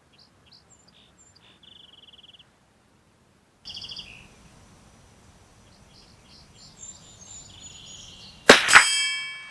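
Songbirds chirping and trilling, then near the end a single shot from a Henry .22 LR lever-action rifle, followed about a third of a second later by the clang of the bullet striking a steel gong at 50 yards. The gong rings on with several clear tones that fade away.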